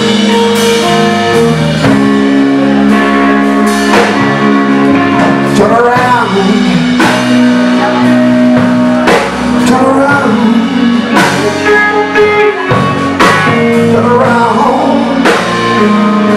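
Live blues-rock band playing: an electric guitar takes the lead with held notes, string bends and vibrato over electric bass and drum kit.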